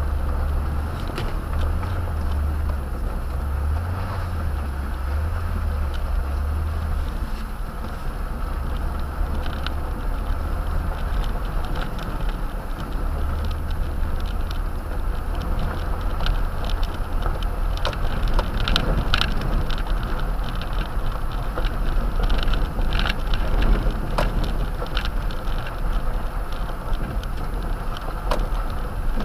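Toyota Tundra pickup driving along a dirt track, heard from inside the cab: a steady low engine and drivetrain rumble under the hiss of tyres on gravel. Scattered clicks and rattles come more often in the second half.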